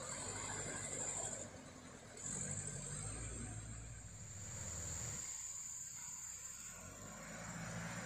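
Truck engine running as the truck works along a muddy track, fading out about five seconds in, with engine sound coming back near the end. A steady high insect drone runs underneath.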